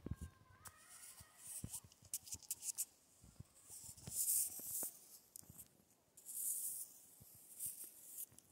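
A forked twig slapping and swishing into dry, powdery snow crystals: several short, crisp hissing swishes, the loudest about four seconds in and again about six and a half seconds in, with small clicks and ticks between.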